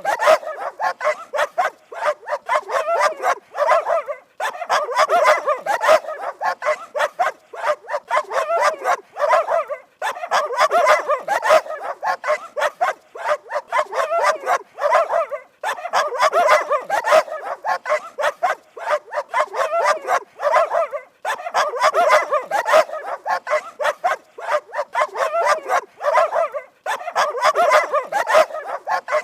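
Dogs barking rapidly and continuously, bark after bark in quick succession, in runs of several seconds broken by short pauses.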